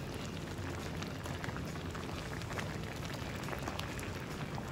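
Pot of milk-based chicken macaroni soup simmering, a steady bubbling hiss, with a few faint clicks as a ladle stirs it.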